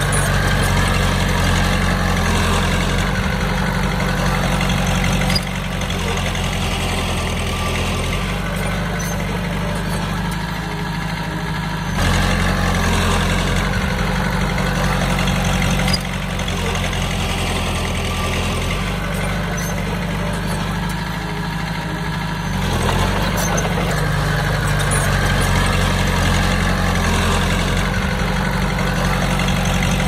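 Komatsu D20P bulldozer's diesel engine running steadily. Its loudness shifts abruptly up and down several times.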